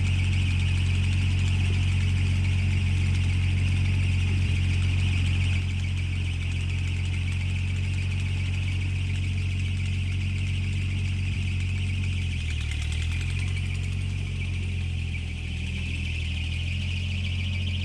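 Ford tractor engine running steadily at idle. It gets a little quieter about five and a half seconds in, and its pitch wavers briefly about twelve seconds in.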